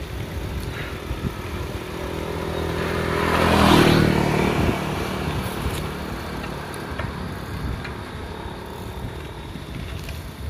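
A small motorcycle engine passing close by. It grows louder to a peak about four seconds in, then fades away.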